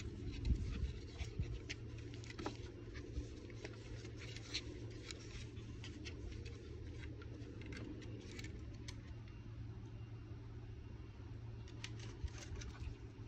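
Light, scattered clicks and scratches of a speckled puppy's claws and paws on the wooden slats of a bench as it plays and mouths a hand, thinning out past the middle and picking up again near the end, over a steady low hum.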